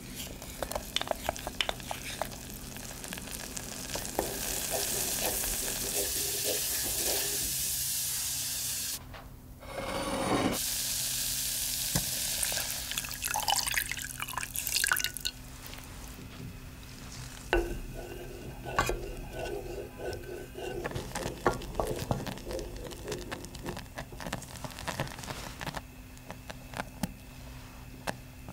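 Melted butter and corn starch sizzling in a small saucepan as they are stirred, a steady hiss broken off briefly. About halfway through, milk is poured in and the mixture is stirred with light clicks and scrapes against the pan.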